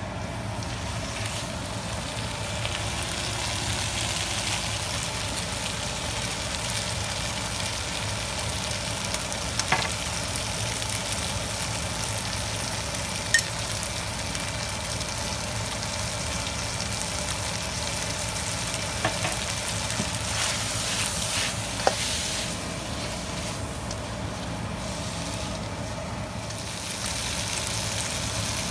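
Prawns and noodles sizzling in a hot wok as they are stir-fried, a steady frying hiss over a low steady hum. A few sharp clicks of the spatula against the wok come through it.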